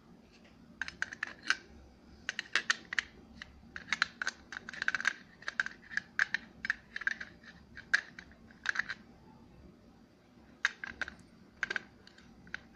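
Plastic parts of a contactor clicking and rattling against the plastic housing as they are handled and fitted back together by hand: a run of light clicks in clusters, with a short pause a little after the middle.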